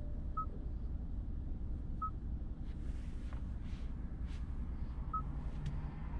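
Kia K8 2.5-litre four-cylinder sedan driving in town, heard from inside the cabin as a steady low drone of road and engine noise. Three short, high beeps come at about half a second, two seconds and five seconds in.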